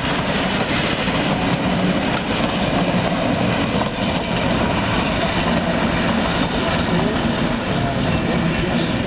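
1926 Illinois Central electric commuter train, a motor car and trailer pair, running past on the track and drawing away. The noise is steady throughout.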